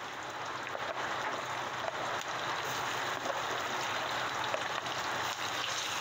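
Pieces of village chicken sizzling in hot oil with fried aromatics, a steady crackling sizzle that grows louder about a second in and then holds.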